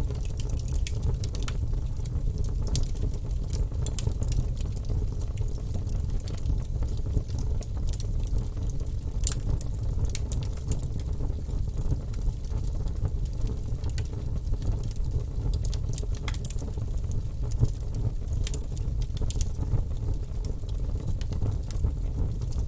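Fire in a fireplace burning, with a steady low rumble and irregular sharp crackles and pops scattered throughout.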